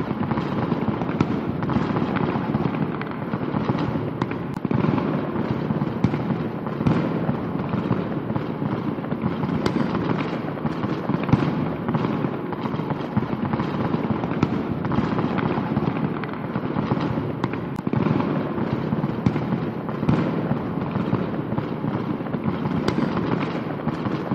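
Fireworks going off in a continuous dense crackle of many small bangs and pops.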